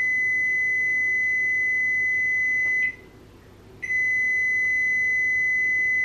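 Over-the-range microwave oven sounding its long reminder alert that food has been left inside. Two loud, steady, high-pitched beeps, each about three seconds long, with about a second's pause between them.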